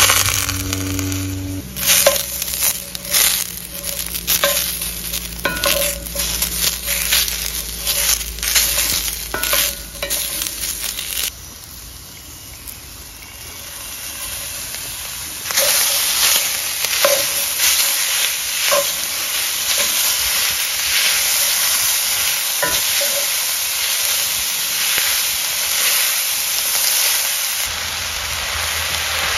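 Vegetables sizzling in a hot cast iron skillet over a charcoal grill, with quick knocks and scrapes of stirring against the pan for the first ten seconds or so. After a quieter moment the sizzle grows louder about fifteen seconds in, as corn kernels hit the hot pan, and runs on as a steady hiss with an occasional knock.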